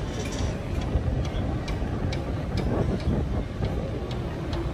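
Distant twin-engine jet airliner landing: a steady low rumble of its engines, with faint scattered ticks.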